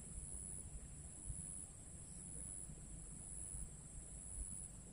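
Faint, steady high-pitched insect chorus from crickets or cicadas, over a low rumble.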